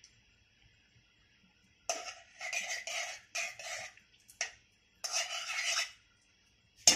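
A metal spoon stirs and scrapes in a steel pan in several short bouts. Near the end a sharp metallic clink rings briefly.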